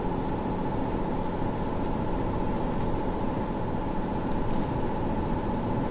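Car cruising on an expressway at about 80 km/h, heard from inside the cabin: steady road and engine noise with a constant hum.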